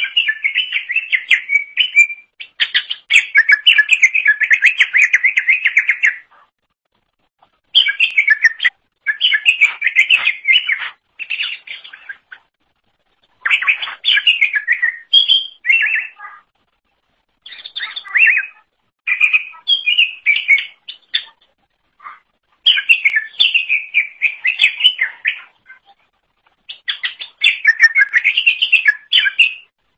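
Greater green leafbird (cucak ijo) in full song, giving a run of rapid, varied chattering and whistled phrases, each a second to a few seconds long, with short pauses between them.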